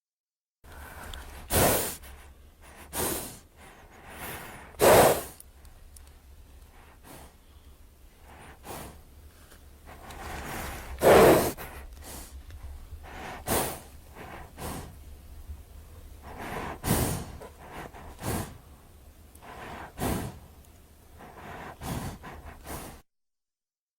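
Designed creature sound effect for a Daeodon, a giant prehistoric boar-like animal: a run of about a dozen short breaths and snorts, one every second or two, over a low steady hum. Two of them, about five and eleven seconds in, are the loudest.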